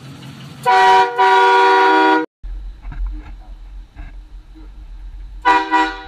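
Compressor-fed air train horn on a Chevrolet Silverado pickup, blasting a loud multi-note chord for about a second and a half before it cuts off abruptly. Low vehicle rumble follows, then a second short blast near the end.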